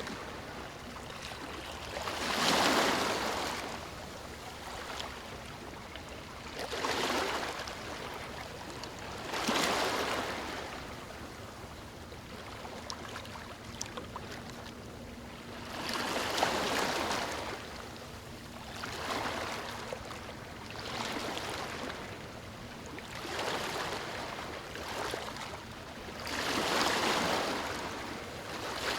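Small ocean waves washing up on a beach, about eight swells breaking and hissing in, each rising and fading over a second or two, over a steady wash of surf.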